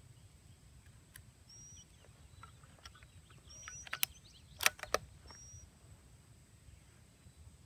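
Bolt of a CZ 455 .22 rifle worked by hand: one sharp click about four seconds in, then a quick run of three sharper metallic clicks, the loudest sounds here. A bird gives a short chirp every couple of seconds against a steady low outdoor rumble.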